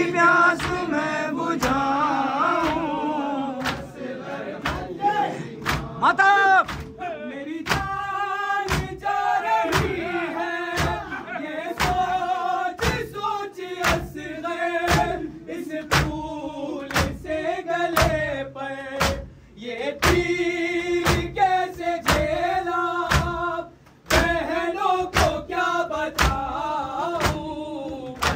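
Mourners beating their chests in matam, open hands striking in a steady rhythm of about two beats a second, under voices chanting a noha, the Shia mourning elegy for Muharram.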